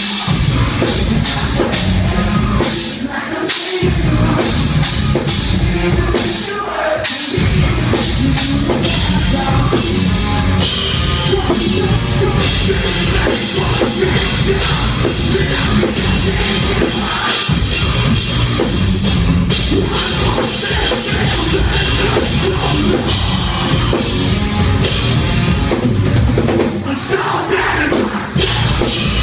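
Live metalcore band playing loud, with drum kit, distorted guitars and singing, recorded from the crowd on a phone. Twice in the first several seconds the bass end drops out for a moment.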